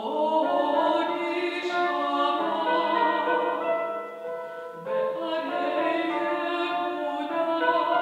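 A woman singing classical art song in full operatic voice, accompanied by a cimbalom. The phrase breaks off briefly a little past halfway and then resumes.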